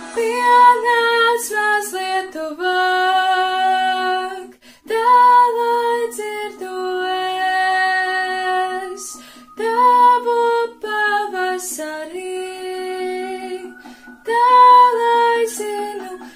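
A girl singing a Latvian song solo, in long held notes, breaking for a breath about every five seconds.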